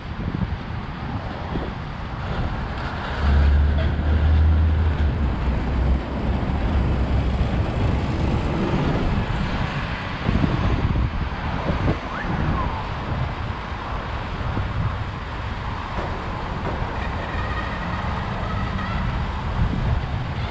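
Traffic on a city street, with a bus and a truck passing close by. A deep rumble swells a few seconds in and lasts about three seconds.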